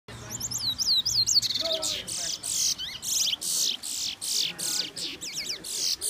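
Caged songbirds singing: a run of quick whistled notes, then a long string of buzzy, downward-sweeping phrases repeated in quick succession.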